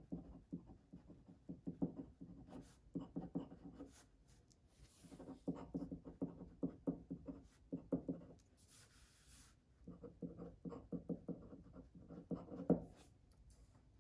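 Glass dip pen scratching and tapping on paper as a line of handwriting is written, in several runs of quick short strokes with brief pauses between them.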